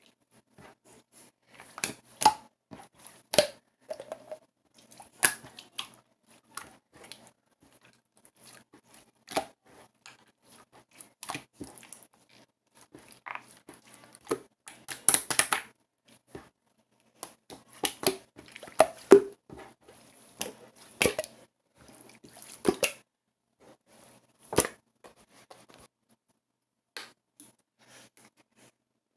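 Hands working a craft material up close: irregular small clicks, pops and crinkles, busiest in the middle stretch.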